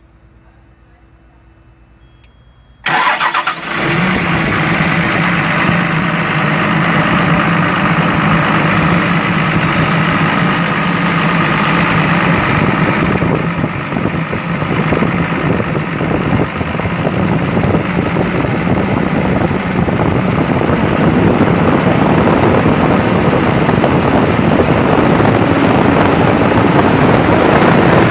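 Komatsu PC200-8 excavator's six-cylinder turbo diesel comes in suddenly about three seconds in and runs loud and steady, easing slightly midway and building again. It is being run and loaded to check whether the crankcase breather blows out oil, the sign of broken piston rings and blow-by.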